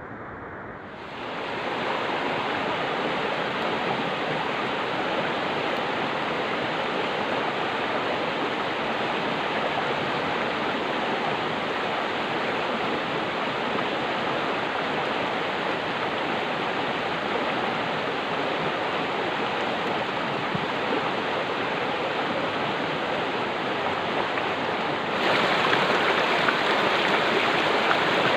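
Steady rushing of flowing stream water, which gets louder about 25 seconds in.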